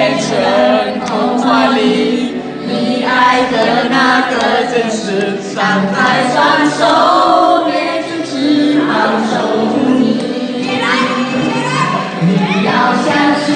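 A song with several voices singing together over instrumental backing.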